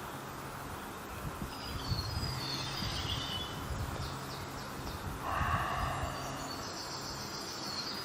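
Birds chirping and calling over a steady low hum, with one louder, lower call about five seconds in.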